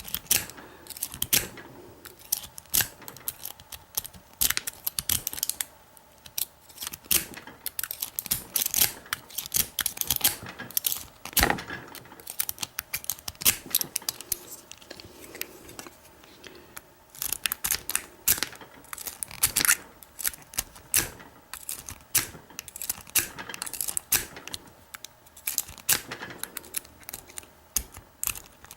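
A snake rake scrubbing in and out of a pin-tumbler deadbolt cylinder held under tension: rapid metallic scraping and clicking of the pins. It comes in irregular runs, with a few short pauses.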